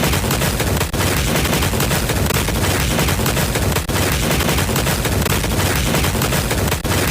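Sound-effect automatic gunfire: rapid, continuous machine-gun fire, with brief breaks about every three seconds.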